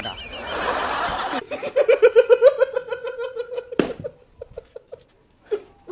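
A short noisy stretch, then a person laughing in a quick, steady run of "ha-ha-ha" pulses that fades out after a few seconds.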